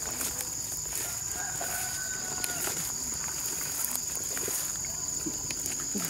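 A rooster crowing faintly, one drawn-out call from about one second in, over a steady high-pitched insect drone.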